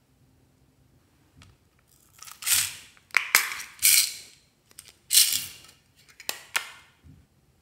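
Small plastic craft-bead cases handled and opened: a few sharp clicks and about five short, scratchy plastic rattles, starting about two seconds in.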